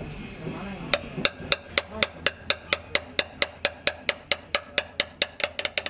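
Hammer tapping the splined drive shaft of a hydraulic gear pump to drive it into the housing: a steady run of sharp metallic taps starting about a second in, about four a second, quickening near the end.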